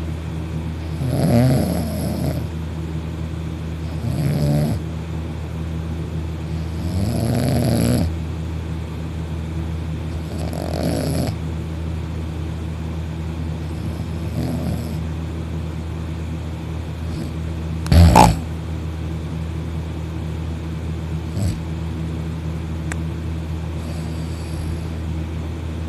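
Loud snoring from a sleeper, one snore about every three seconds, growing fainter and stopping after about fifteen seconds. A single sharp thump comes about eighteen seconds in, with a smaller knock a few seconds later, over a steady low hum.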